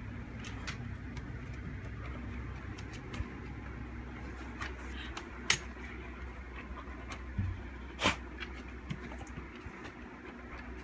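An English Cocker Spaniel and a kitten playing on a hardwood floor: scattered light clicks and taps over a steady low hum. There is a sharp click about five and a half seconds in, a dull thump a little before seven and a half seconds, and another sharp click about eight seconds in.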